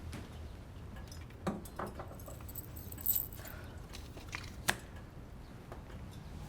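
Scattered light metallic clinks and taps of small objects being handled, like keys jangling, over a low steady room hum.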